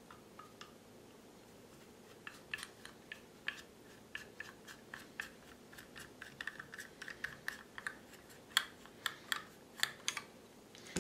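Screwdriver working the grip screws of a Browning Hi-Power pistol: faint, irregular small clicks and scrapes of the metal bit in the screw head and against the grip panel, starting about two seconds in and coming thicker toward the end.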